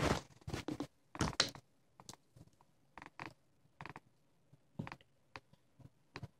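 Hand rubbing against a phone case, giving a string of short squeaks and clicks at irregular intervals. The loudest come about a second in.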